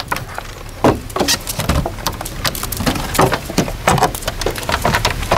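Irregular knocks, clunks and clicks as the fold-out bed end of a hybrid caravan is packed away, its hinged panels being swung and its latches closed by hand.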